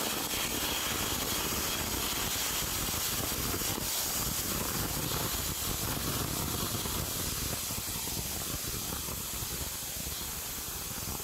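Pressure cooker whistling: steam hissing loudly and steadily out from under the weighted whistle valve, the sign that the cooker has reached full pressure.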